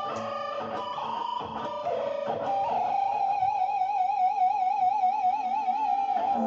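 Electric guitar played with a whammy bar: a few notes bent and dipped in pitch, then from about three seconds in one held note wobbling evenly up and down in a whammy-bar vibrato.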